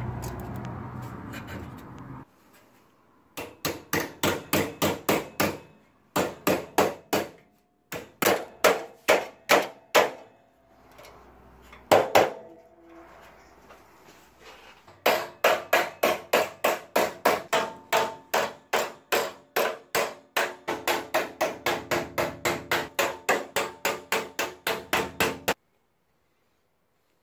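Hammer tapping on sheet steel in quick runs of blows, about three to four a second, the metal ringing after each one, as the new front panel of a Mk1 Volkswagen Golf GTI is knocked into place. A single heavier blow stands alone about halfway through, and a brief low noise comes before the first run.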